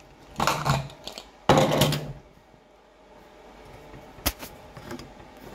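Aluminium pressure cooker lid being worked open by its handles: two bursts of metal scraping and rattling in the first two seconds, then a single sharp click about four seconds in.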